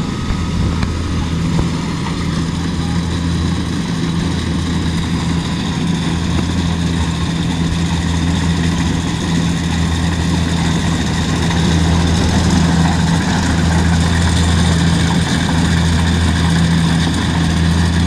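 Kubota rice combine harvester's diesel engine running steadily under load as the machine cuts rice, a low hum with a higher whine over it, growing a little louder as the harvester comes closer.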